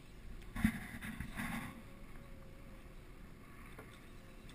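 Wind and water around a small boat on open water, with a sharp thump about half a second in and a brief rustle just after.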